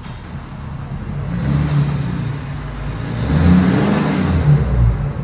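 Ford 6.7 Power Stroke V8 turbodiesel engine running and being revved. Its note rises about a second and a half in, then rises again louder around three and a half seconds in before settling.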